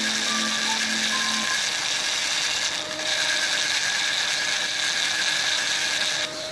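Steady mechanical running of a small machine or power tool, an even hiss-like whirr with two bright high bands; background music plays over the first second and a half.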